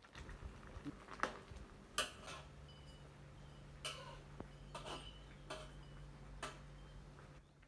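Metal ladle stirring a coconut-milk curry in a large aluminium wok, knocking and scraping against the pan in a few irregular clicks over a faint steady low hum.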